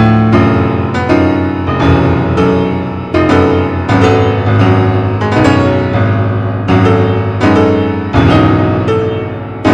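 Piano or electric keyboard music: chords struck about once or twice a second, each note decaying before the next.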